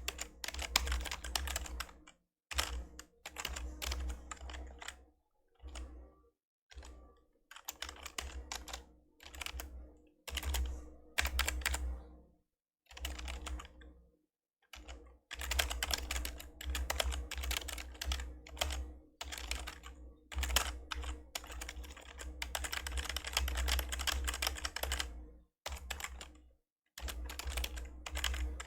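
Fast typing on an old membrane computer keyboard, in bursts of a second to several seconds with short pauses between them.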